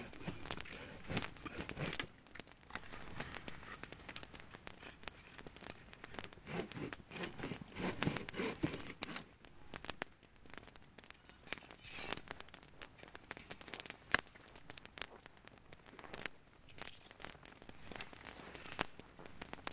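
Wood campfire crackling with irregular sharp pops and snaps, with a stretch of heavier rustling and scraping about six to nine seconds in.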